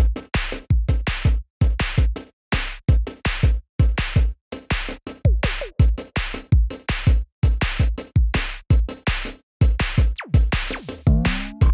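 Electronic background music with a heavy drum-machine beat that cuts out in short stuttering gaps. Near the end a sweeping sound falls in pitch, then rises.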